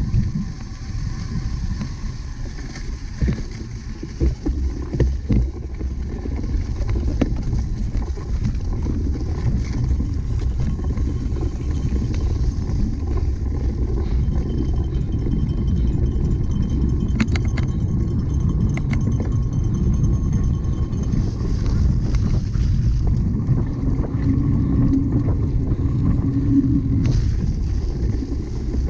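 Steady low rumble of wind buffeting the microphone and a cyclocross bike rolling over rough ground, with a few sharp clicks and rattles.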